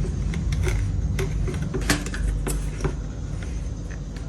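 Irregular small clicks and light knocks as the parts and lid of a stainless multi-functional grinder are handled and fitted, over a steady low rumble.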